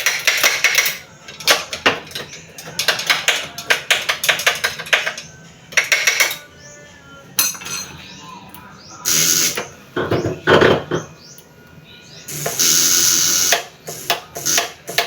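Kymco Like 150i scooter being tried with a loosely clamped battery terminal: quick runs of sharp clicks, then two short noisy bursts about nine and twelve and a half seconds in. The electrics are cutting in and out because of the poor battery connection.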